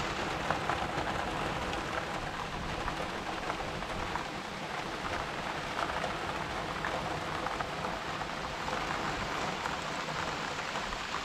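Heavy rain pouring down steadily in a sudden downpour.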